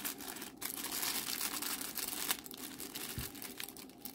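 Clear plastic packaging bag crinkling and crackling as it is handled.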